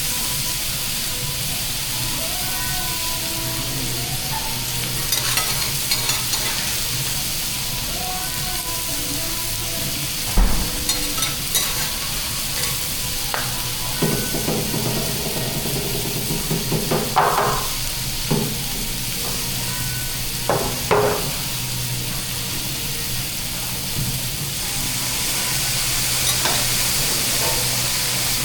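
Food sizzling on a teppanyaki steel griddle, with metal spatulas scraping and clacking against the plate every few seconds.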